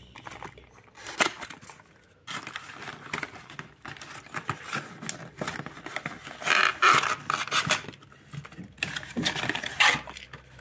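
Cardboard gift box and packaging being opened and handled: irregular rustling, scraping and crackling as the lid comes off and a small product box is taken out.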